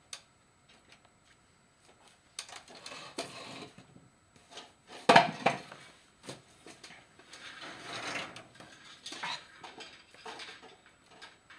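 Hands working chicken wire and wire cutters: irregular rustling and small metal clinks, with one sharp clatter about five seconds in.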